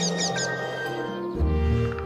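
Background music of held, sustained notes, with a deep bass line coming in about one and a half seconds in.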